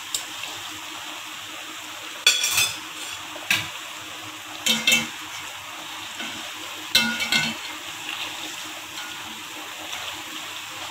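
A batter-coated naan deep-frying in hot oil with a steady sizzle. Metal tongs and a wire skimmer clatter and scrape against the metal karahi about four times as the naan is turned over; the loudest clatter comes a couple of seconds in.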